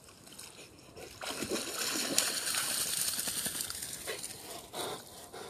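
A dog splashing through shallow water as it climbs out of a pond, a dense rush of splashing and sloshing lasting about three seconds, then a short splash near the end.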